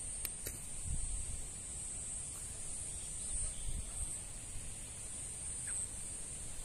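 Steady high-pitched chorus of insects, swelling slightly now and then, over a low rumble. Two faint clicks just after the start.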